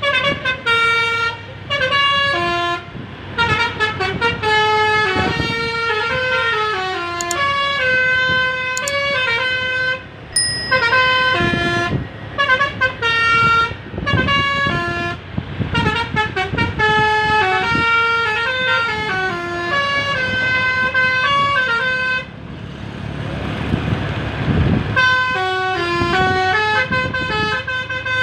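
Telolet Basuri multi-tone musical bus horn playing a running melody of stepped, held notes. About three seconds before the end the tune breaks off for a rushing noise, then starts again.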